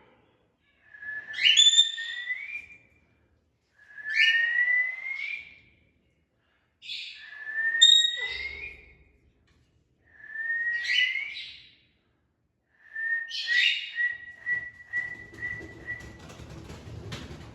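Pet parakeet whistling: five long whistled calls about three seconds apart, each a steady note that rises at the end with a harsher squawk over it. The last call breaks into a quick run of short whistle notes, and a low rustling rumble comes in near the end.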